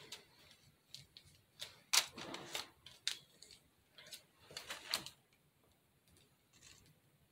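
Scattered small clicks and plastic rustles from a piping bag of spackle being squeezed and handled, the busiest stretch a little after the first second and again around five seconds in.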